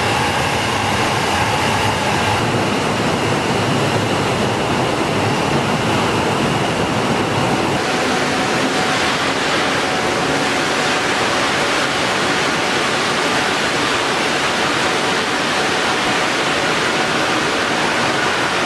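Loud, steady industrial din of a lead smelter's plant, an even rushing noise with a faint high whine that stops about eight seconds in.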